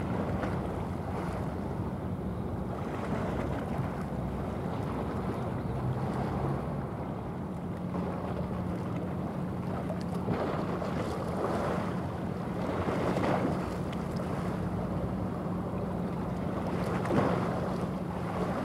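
Steady low drone of a passing cargo ship's diesel engine, a constant hum, with wind gusting on the microphone and rushing over it now and then.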